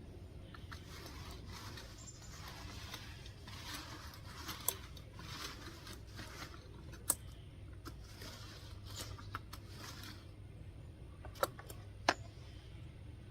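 Soft, uneven swishing strokes of a stain roller worked over concrete, with four sharp clicks scattered through.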